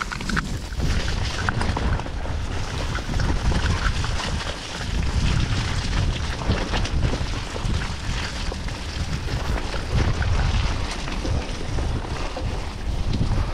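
Wind buffeting the microphone of a moving ride camera: a steady rough rumble with scattered knocks and rattles.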